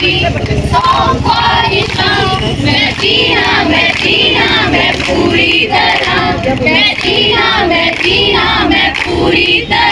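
A song sung by female voices, several voices together like a choir, with long held notes that rise and fall.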